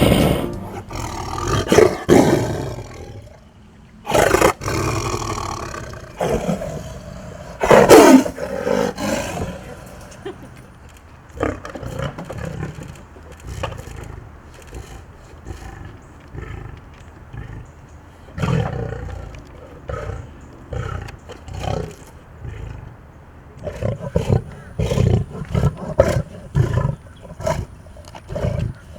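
A big cat roaring and snarling aggressively, with several loud roars in the first ten seconds, then a run of shorter, quieter grunts near the end.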